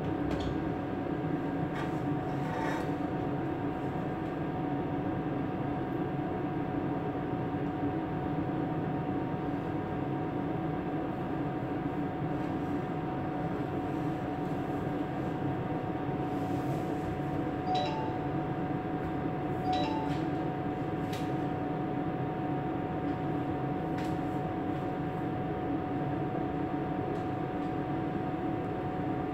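Steady drone of a boat's engines heard from inside its wheelhouse, an even hum with a few constant tones, and a few faint clicks.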